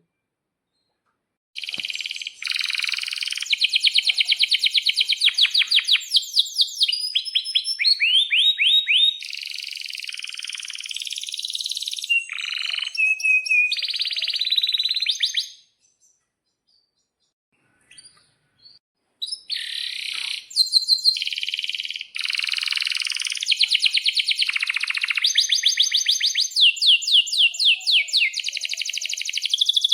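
Domestic canary singing long rolling trills of rapid repeated high notes, mixed with sharp chirps. The song comes in two long stretches with a pause of a few seconds between them.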